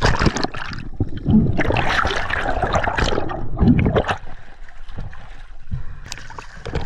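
Water sloshing and trickling in uneven bursts, louder for the first four seconds and quieter after.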